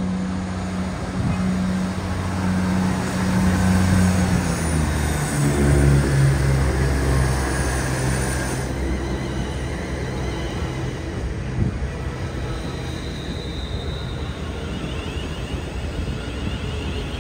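A train passing at speed: a low hum drops in pitch about five seconds in as it goes by, over a continuous rumble and rush of the train on the rails.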